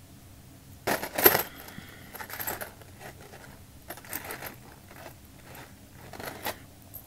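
Metal costume jewelry (chains, earrings and charms) clinking and jingling together as a hand sorts through the pile, in a few short jingles, the loudest about a second in.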